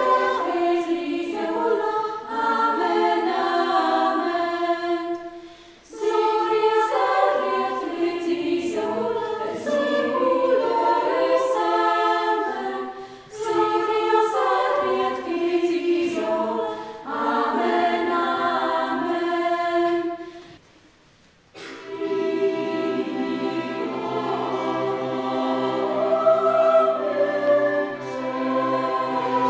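Women's and girls' voices of a small choir singing together in phrases, with short breaks between them. After a brief silence near the end, a larger choir starts a new piece, with instruments holding steady low notes underneath.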